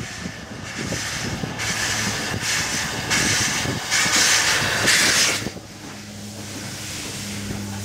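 Steam tank locomotive passing beneath at low speed, with exhaust beats and then a loud rush of steam hiss that cuts off suddenly about five and a half seconds in. A steady low hum remains near the end.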